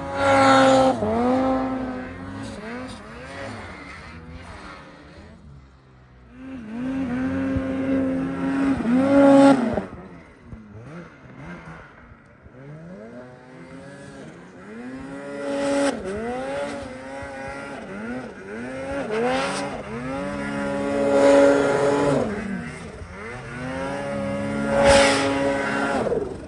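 Snowmobile engines revving up and down again and again with the throttle as the sleds plough through deep powder. The sound grows loud three times: at the start, in the middle, and through the last third.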